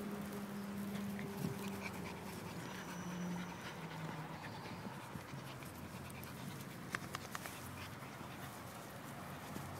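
Rottweiler puppy panting, with a low steady hum in the first few seconds and a few sharp clicks about seven seconds in.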